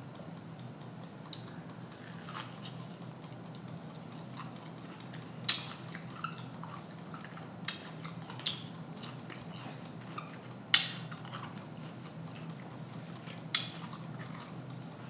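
A person chewing and biting fried food, with about five or six sharp mouth clicks and smacks scattered through, over a steady low hum.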